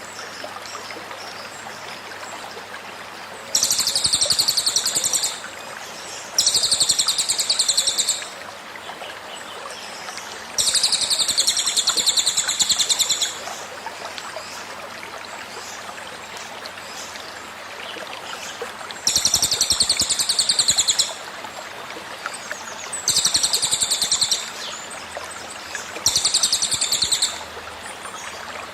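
A cililin bird repeating its rapid, rattling 'tembakan' trill: six high bursts of about two seconds each, over the steady rush of a flowing stream.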